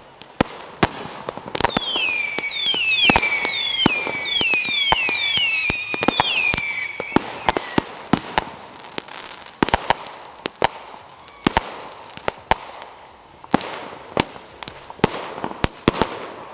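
200-gram consumer firework cakes firing: a rapid, irregular string of sharp bangs from shots launching and breaking. About two to seven seconds in, a run of repeated falling whistles plays over the bangs.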